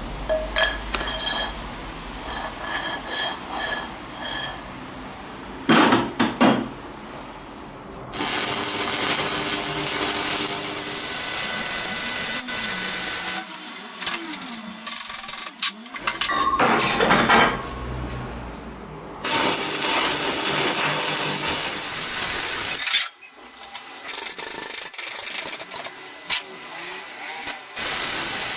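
Power tools running in several separate bursts that start and stop abruptly, preceded by a few ringing metal clinks and two sharp knocks.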